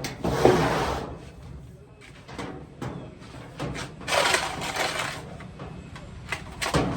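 Irregular knocks, clunks and scraping of the dryer's sheet-metal cabinet and parts being handled. There are two longer scrapes, one at the start and one about four seconds in, with sharp knocks in between.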